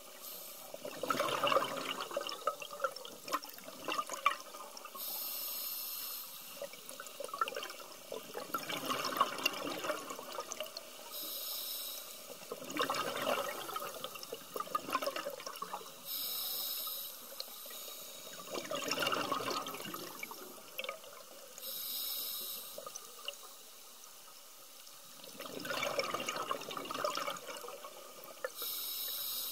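Scuba diver breathing through a regulator underwater: a short hiss on each inhale, then a longer, louder rush of exhaled bubbles, about five breaths, one every five to six seconds.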